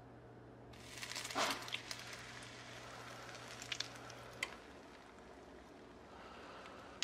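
Whisked eggs poured from a blender bottle into a hot nonstick frying pan, sizzling from about a second in as they hit the pan. A few light clicks sound through the sizzle.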